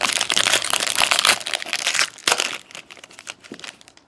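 Foil wrapper of a trading card pack crinkling as it is opened and handled: a dense crackling for about two seconds, then scattered crackles that die away near the end.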